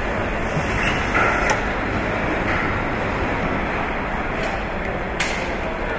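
Steady machinery noise of a car assembly line, an even hum and hiss, with a sharp click about a second and a half in and another near the end.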